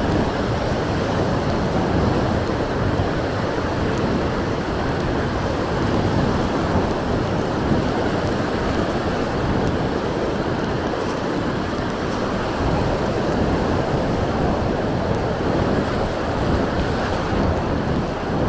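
Strong wind blowing over the microphone together with waves breaking on the beach, a steady rushing noise with low rumbling gusts.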